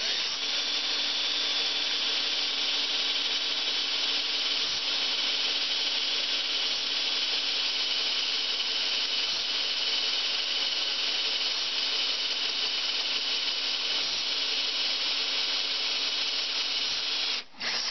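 Power drill running at a steady speed as a twist bit bores through the head of a seized stainless steel screw to drill it off, with a brief stop near the end.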